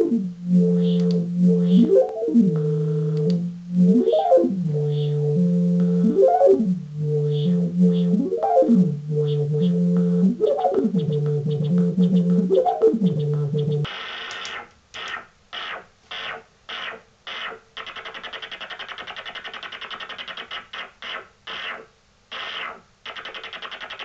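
Flame Talking Synth module played through a Doepfer low-pass filter. For the first 14 seconds or so it holds a droning chord-like tone whose pitch swoops up and back down about every two seconds. It then switches to a hissing noise sound, chopped on and off in quick bursts and later running more steadily with a fast flutter.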